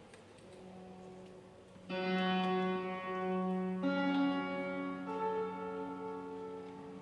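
Mixed choir singing sustained sacred chords in a reverberant stone church: a low note is held softly at first, the full choir comes in about two seconds in, and higher voices join about two seconds after that.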